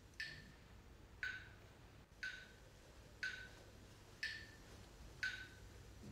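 Steady ticking, one sharp click a second, six in all, each with a short ringing note like a metronome or clock tick.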